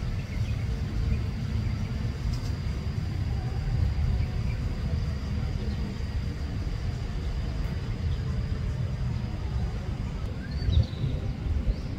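Outdoor ambience: a steady low rumble, with a faint steady high whine above it and a few short high chirps near the end.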